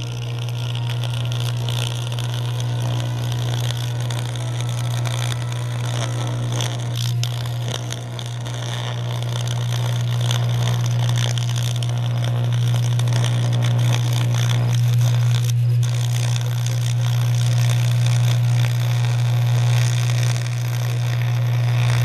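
Electric arc from a welder-fed carbon electrode burning inside a steel crucible of aluminium: a steady mains-frequency buzz with a continuous sputtering crackle, slowly getting louder.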